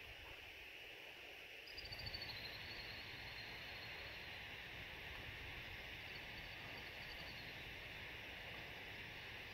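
Faint outdoor ambience: a steady high hiss with low wind rumble on the microphone that picks up about two seconds in, and a faint high trill twice.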